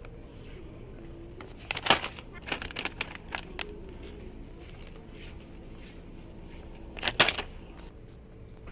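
Plastic dog-treat bags crinkling and rustling as they are handled and pulled from a store shelf, in short bursts about two seconds in, around three seconds in, and again near seven seconds, over a steady low hum.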